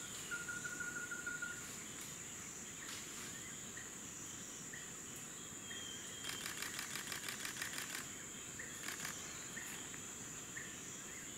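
Forest insects: a steady high-pitched drone throughout, with a fast ticking trill at the start and bursts of rapid buzzing clicks about six seconds in and again near nine seconds, plus a few faint short chirps.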